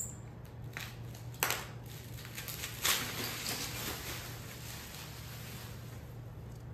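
Bubble wrap rustling and crinkling as it is pulled off a roll, with sharper crinkles about a second and a half in and again about three seconds in.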